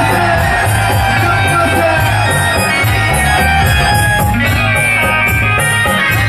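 Loud amplified live stage music with a steady beat and a singer's voice over it.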